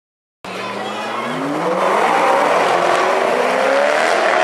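McLaren 650S Spider and Koenigsegg Agera R supercars, both with twin-turbo V8s, accelerating hard side by side. The sound starts about half a second in and grows louder, the engine pitch rising and stepping back down at each upshift.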